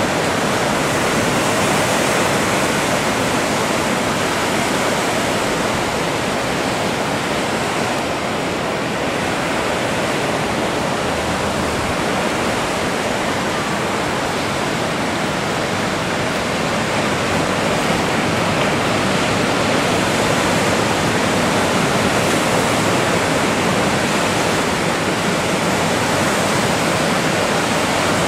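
Ocean surf breaking and washing, a steady rush of water.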